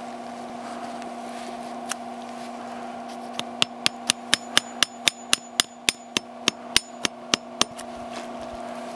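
A hammer tapping a sap spout into a drilled taphole in a maple trunk: one tap, then a quick run of about sixteen light taps, roughly four a second, setting the spout tight. A steady hum runs underneath.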